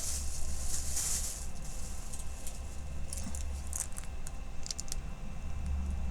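Plastic wrapping and a diamond painting canvas being handled: a soft rustle for about the first second and a half, then scattered light crackles.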